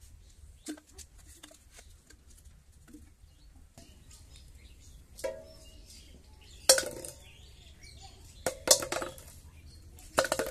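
Plastic bottles knocking against a large metal basin as they are set into it, each knock making the basin ring: one light clink, then three loud knocks in the second half, after some soft clicking of bottles being handled.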